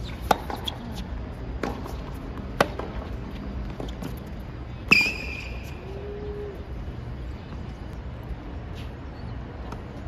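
Tennis racquets striking the ball in a baseline rally on a hard court: several sharp pops about a second or so apart, the loudest about five seconds in with a brief high squeal after it, then no more hits.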